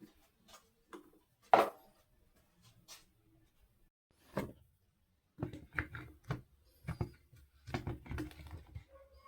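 Clicks and knocks of parts being handled during work on a Makita DUR193 string trimmer. There is a single sharp knock about one and a half seconds in, then a busier run of taps and knocks from about halfway through.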